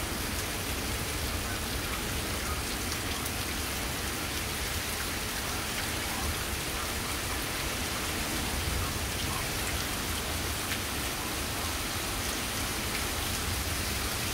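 Heavy rain pouring down steadily as a storm moves in, an even, unbroken hiss with no thunderclaps.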